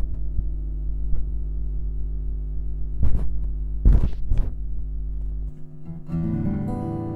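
Mains hum at 50 Hz from an amplified contact pickup pressed under a card on an acoustic guitar's bridge, with a few sharp handling knocks as fingers press on the pickup. The 50 Hz hum cuts out about five and a half seconds in, when a notch filter removes it, and plucked guitar strings sound near the end.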